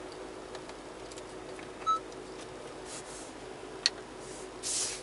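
Low steady hum of a parked car's cabin, with a short electronic beep about two seconds in, a sharp click near four seconds, and brief hisses around three seconds and near the end.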